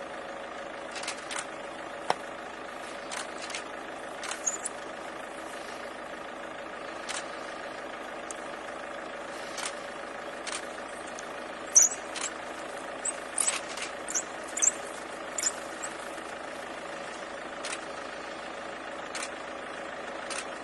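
A vehicle engine idling steadily, with scattered sharp clicks and several short, high-pitched chirps, most of them in a cluster past the middle.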